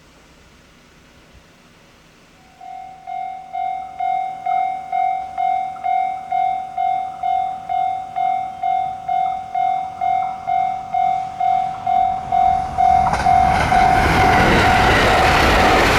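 A level-crossing warning bell starts ringing a few seconds in, a steady electronic ding about twice a second. In the last few seconds a train approaches and passes, its rumble and wheel noise swelling over the bell.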